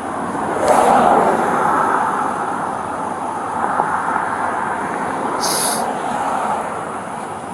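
A vehicle passing by: a rushing rumble that swells about a second in and slowly fades, with two short hisses.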